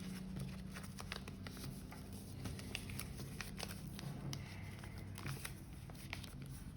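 Origami paper being folded and creased by hand: faint crinkles and small taps scattered throughout, over a low steady hum.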